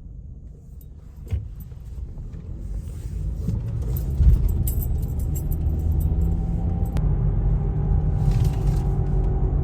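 A car driving along a street: road and engine rumble builds over the first few seconds as it picks up speed, then holds steady, with a single click early on and light rattles. No metal-on-metal suspension knock stands out, which fits the just-replaced suspension part having cured it.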